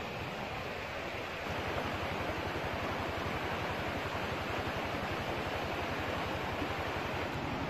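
Steady rushing of a river's flowing water, growing a little louder about a second and a half in.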